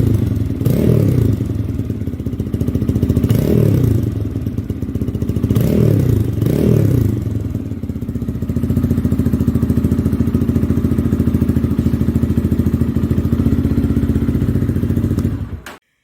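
Motorcycle engine with a loud aftermarket slip-on muffler, blipped four times in the first seven seconds, each rev rising and falling back, then settling into a steady idle that cuts off suddenly near the end.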